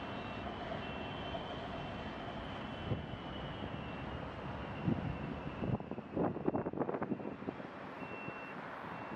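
Steady distant jet engine noise from airliners at the airport, including a Boeing 777 lining up for takeoff. From about six seconds in, wind buffets the microphone in uneven gusts.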